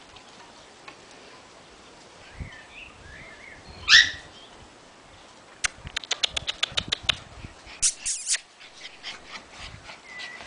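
White Puli puppies at play: one short, loud yelp rising in pitch about four seconds in, then a quick run of high, sharp yips and a squeal a couple of seconds later.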